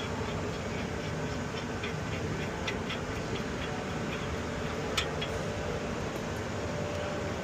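Steady low vehicle hum with a run of light ticks, about four a second, over the first three and a half seconds, and one sharper click about five seconds in.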